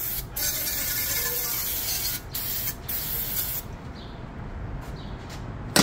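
Aerosol brake cleaner sprayed onto brake parts in several hissing bursts for about three and a half seconds, before they are brushed clean. A single sharp knock comes near the end.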